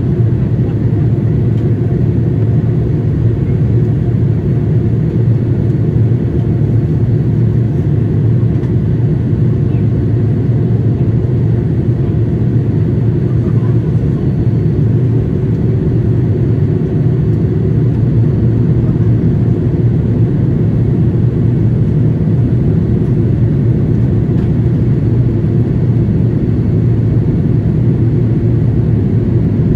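Steady low cabin rumble of a Boeing 787-8 Dreamliner in flight, the engine and airflow noise heard from a window seat, even and unchanging throughout.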